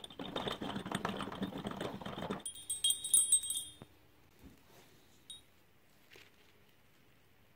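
Small metal bolts strung on a wire jangle and splash as they are swished and lifted out of a plastic tub of liquid. About two and a half seconds in, the splashing stops and the bolts clink together with a brief, high metallic ringing. After that there are only a few faint clicks.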